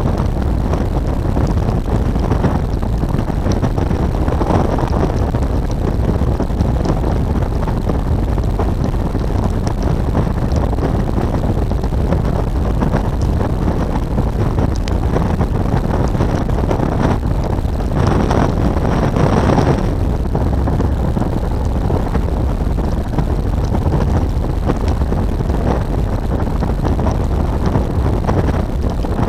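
Wind rushing over the microphone with the BMW R1200 GS Adventure's flat-twin engine running underneath at riding speed. The noise swells louder for a couple of seconds about two-thirds of the way through.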